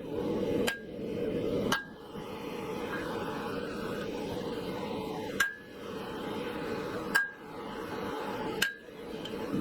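Hammer striking steel five times at uneven intervals, each blow a sharp metallic clink with a short ring, over a steady low rushing background.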